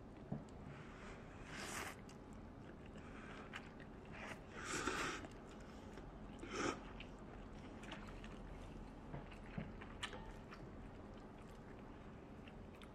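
People eating glass noodles with chopsticks: quiet chewing and a few short slurps, with occasional light clicks of chopsticks against ceramic bowls.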